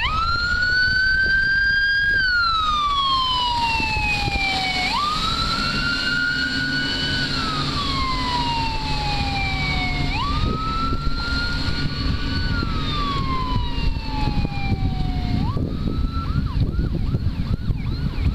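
Fire boat siren wailing, each cycle a quick rise in pitch, a short hold and a long slide down, repeating about every five seconds, four times, then stopping about 16 seconds in. Wind buffets the microphone underneath, more gusty near the end.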